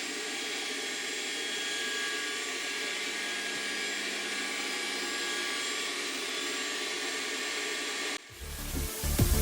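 Trifo Ollie robot vacuum running steadily while cleaning, a fan whir with a faint high whine. About eight seconds in it cuts off suddenly and electronic music with a heavy beat starts.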